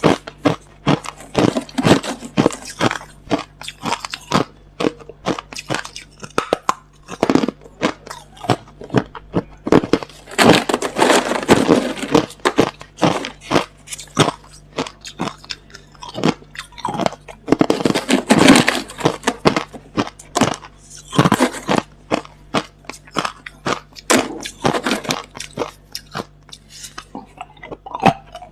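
A person biting and chewing hard, clear crushed ice close to the microphone: a dense, irregular run of sharp crunches, busiest around ten and eighteen seconds in.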